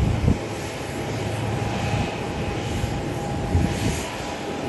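Airliner engines running steadily, a broad rushing noise with a steady high whine through it. Two short low bumps break in, about a third of a second in and near the end.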